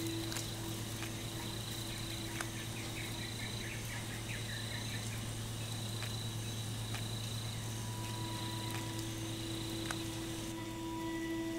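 Cricket-like chirps repeating about every one and a half seconds over a steady low hum, with a brief fast chirping trill about three to five seconds in.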